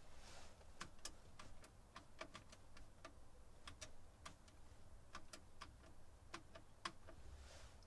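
Payphone keypad buttons being pressed one after another to dial a number: a run of about twenty faint, sharp clicks at uneven spacing, with no dial tones.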